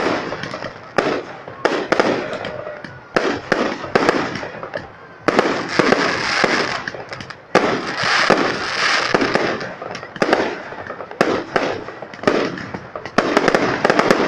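Fireworks display: aerial shells bursting overhead in quick, irregular succession, sharp bangs one after another with a continuous rushing hiss between them.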